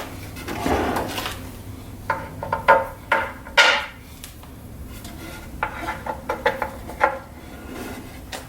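Metal clinks and light knocks of small machine screws and hardware being handled: 8-32 truss-head screws picked out and set in place. The clicks come in irregular clusters, some with a short metallic ring.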